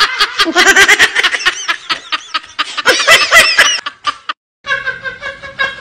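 Exaggerated giggling laughter in quick pitched bursts, stopping abruptly about four seconds in. After a short silence, a different, steadier pitched sound begins.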